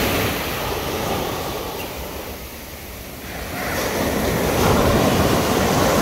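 Ocean surf: waves breaking and washing onto the shore. The rush eases off in the middle and builds again with the next wave.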